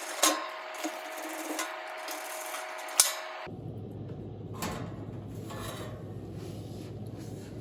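Screwdriver backing out the Phillips screws of a refrigerator's front grate: rubbing and scraping with two sharp clicks, then duller handling noise with a light knock after a few seconds.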